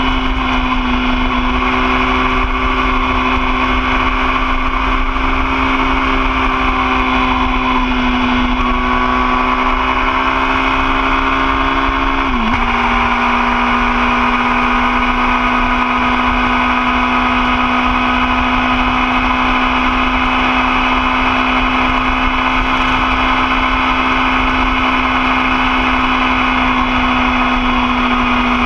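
2013 Yamaha R6's inline-four engine running at a steady pitch while the motorcycle cruises, with wind noise underneath. About twelve seconds in the pitch dips briefly, then settles again at a slightly lower steady note.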